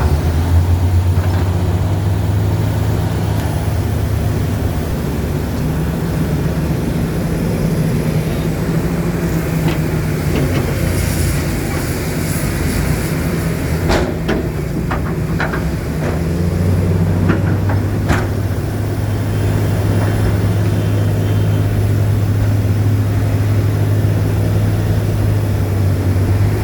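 Heavy diesel engine running steadily with a low hum that eases for a while in the middle and then picks up again. Several sharp metallic clanks and knocks come in the middle, along with a brief hiss.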